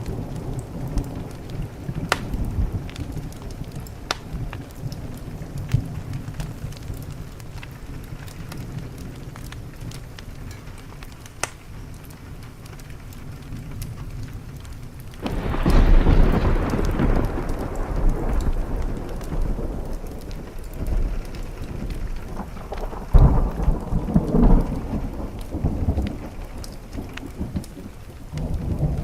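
Thunderstorm with steady rain and the scattered sharp crackles of a wood fire. About halfway through, a loud thunderclap breaks in and rumbles for several seconds, and a second burst of thunder comes a few seconds before the end.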